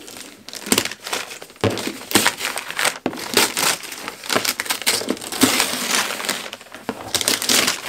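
Paper packaging crinkling and rustling in irregular crackles as hands open a gift box and dig through the wrapping inside.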